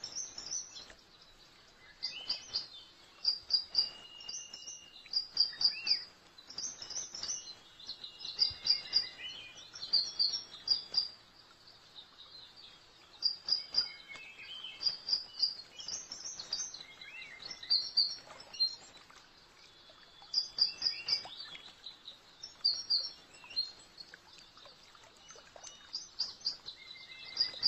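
Wild birds singing: repeated short phrases of quick, high chirps, several notes in each, with a few longer steady whistles, over a faint steady hiss.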